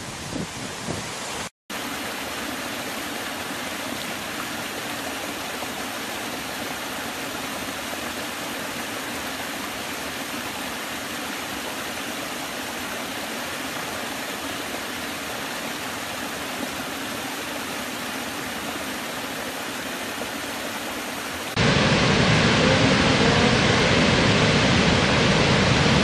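Water rushing over small rock cascades, a steady even rush, broken by a brief gap of silence near the start. About 21 seconds in it switches abruptly to the much louder, fuller roar of a large waterfall.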